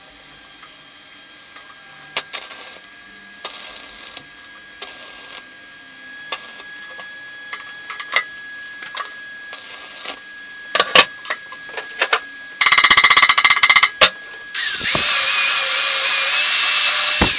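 Angle grinder starting up about three-quarters of the way through, its pitch rising and then holding steady as it grinds the end of a steel motorcycle exhaust pipe, the loudest sound here. Before it come scattered clinks and knocks of tools and a short burst of rapid scraping strokes on the metal.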